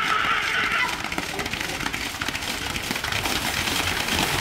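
A pair of racing buffalo splashing at a run through a flooded kambala track, with people shouting, loudest in the first second.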